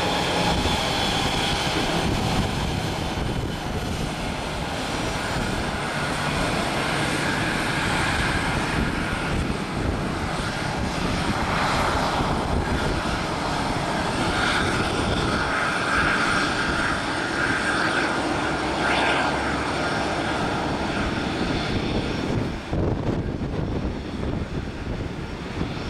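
Airbus A319 jet airliner taxiing, its twin turbofan engines running at low taxi power: a steady rushing noise with a faint whine.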